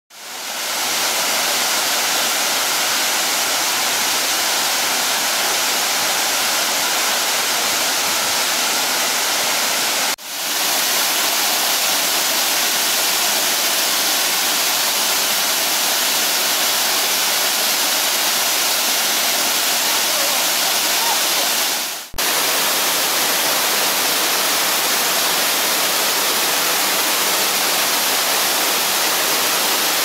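Nabegataki Falls, a wide veil of water dropping over a rock overhang into its pool, pouring steadily: a constant, hissing rush of falling water. The sound fades in at the start and dips away briefly twice, about ten and twenty-two seconds in.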